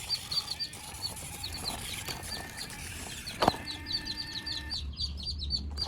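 Small birds chirping in quick, repeated high notes, with one sharp knock about three and a half seconds in and a low hum setting in near the end.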